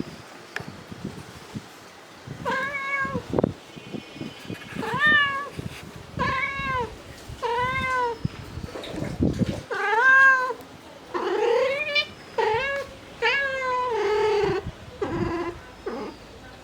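Mother cat calling for her kittens: a run of about nine meows, each rising then falling in pitch, coming a second or two apart and closer together in the second half.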